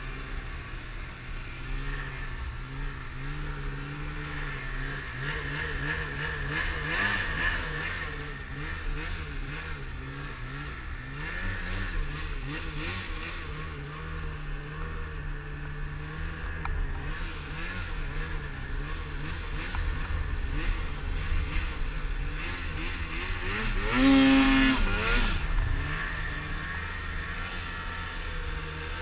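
Polaris Pro RMK Axys snowmobile's two-stroke engine running through deep snow, its pitch rising and falling as the throttle is worked. About five seconds before the end, it revs hard in a sharp climb, the loudest moment.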